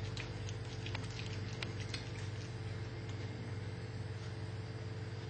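A cat chewing and crunching a rodent it has caught, with a few faint sharp crunches in the first two seconds. A steady low hum runs underneath.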